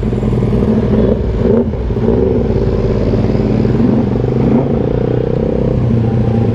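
Motorcycle engines running in slow, congested traffic: a steady engine hum with a few small rises and falls in revs.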